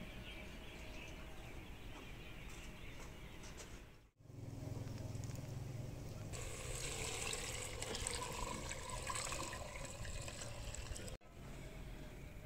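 A clay pot of food cooking over a wood fire: a steady watery hiss, louder and brighter from about six seconds in. It cuts out briefly twice.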